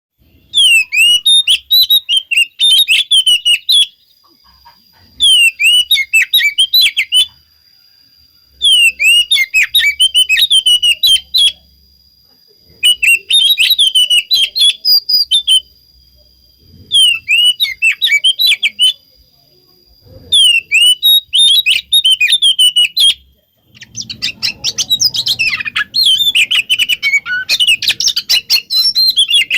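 Oriental magpie-robin (kacer) singing in bursts of rapid, sweeping high chirps, each two to three seconds long with short pauses between, about six times, then singing without a break for the last few seconds.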